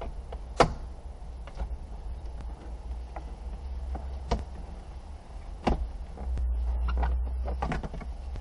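Scattered sharp clicks and knocks as hands work on a stripped car dashboard, handling its panels and fittings; the loudest knock comes about half a second in. A low rumble rises for about a second near the end, followed by a quick run of small clicks.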